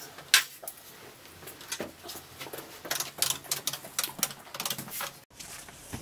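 Quick, irregular clicks and taps of buttons being pressed on a white corded desk telephone, with no dial tones heard; they cut off abruptly a little after five seconds.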